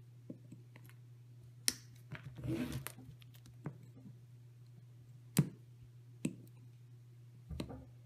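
Side cutters snipping ESC power wires to length: several sharp snips, the loudest about a second and a half, five and a half and six seconds in, with a short rustle of wire being handled in between. A steady low hum runs underneath.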